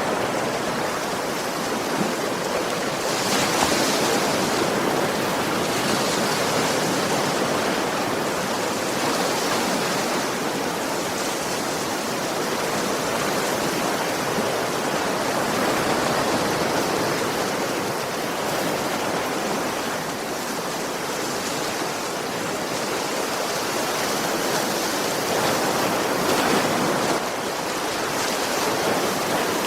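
Sea waves breaking gently on a shore, a continuous wash of surf that swells and eases, with brighter surges a few seconds in and near the end.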